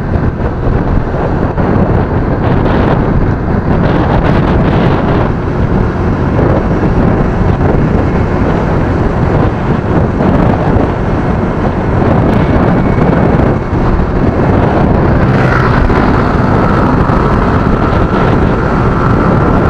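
Loud, steady wind rush on the microphone mixed with a motorcycle running while riding at speed.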